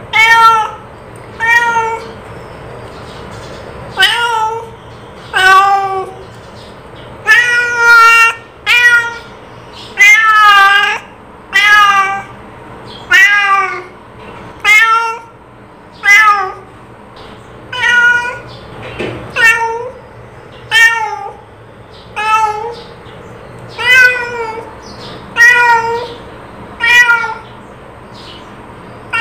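A cat meowing over and over: short, loud meows about one a second, each bending up and down in pitch.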